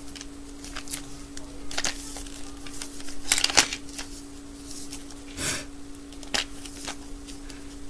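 Hands turning and gripping a plastic 5 Surprise Toy Mini Brands capsule ball, giving scattered plastic clicks and crinkles, a few louder than the rest. A steady low hum runs underneath.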